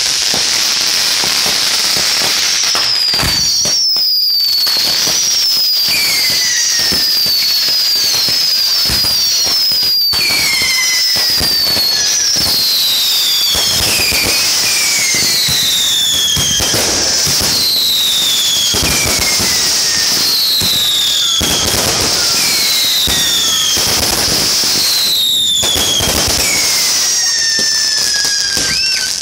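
A home-built firework board going off all at once, a continuous barrage of fireworks. Many shrill whistles fall in pitch and overlap, over steady crackling with sharp bangs scattered through. The whole board firing together is the result of fusing it with the wrong fuse.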